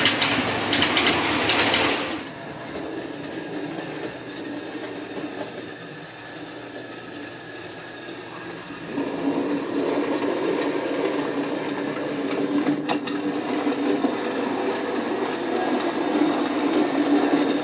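Bachmann OO gauge LNER Class V2 model steam locomotive running on track: the small electric motor and gears whirring, with wheels clicking over the rails. The sound is loud for the first two seconds, drops away, then grows louder again from about nine seconds in as the model comes back round.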